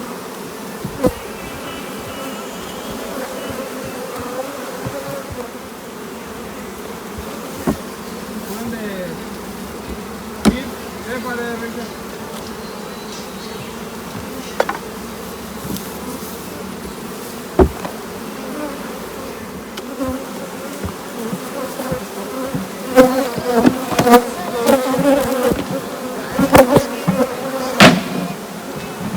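A mass of honeybees buzzing steadily around the hives as fume-board fumes drive them out of the honey boxes. Occasional sharp knocks sound over the buzzing, with a busier run of louder knocks near the end.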